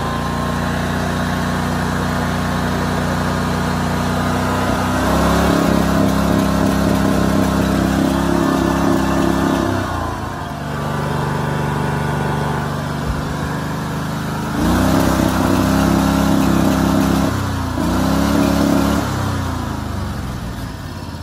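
Predator 670 V-twin engine running, revved up and held at a higher speed three times for a few seconds each, dropping back toward idle in between. It still runs poorly on its new NGK plugs, not any better, and the owner finds it running rich.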